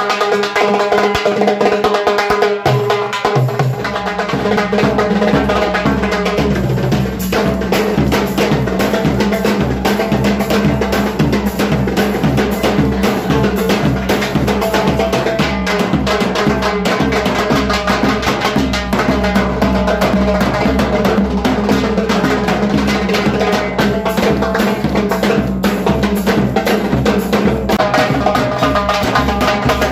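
Band playing loud music over a fast, steady drum and percussion beat, with sustained melody lines; a deep bass comes in about four seconds in.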